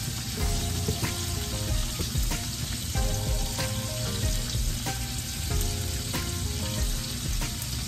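Chicken wings sizzling steadily in a frying pan, with a spoon stirring milk into mashed potatoes in a glass bowl, giving many small clicks and scrapes.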